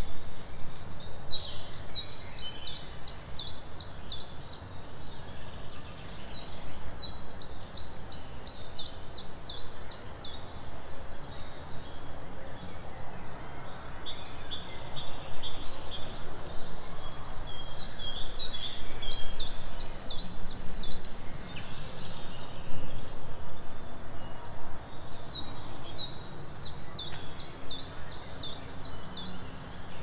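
A songbird singing phrases of quick, high, repeated notes, each phrase lasting three to four seconds, four times with short pauses between. A steady low rumble runs underneath.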